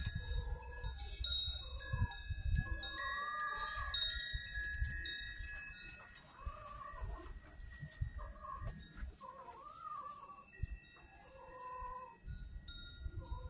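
Hungry stray cats meowing repeatedly, short arching calls every second or two. Behind them are short tinkling chime-like tones at several pitches, a steady high-pitched whine, and low thumps.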